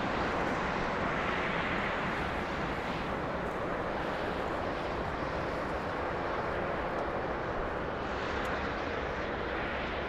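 Jet airliner engines: a steady rushing noise with no distinct tones or clicks.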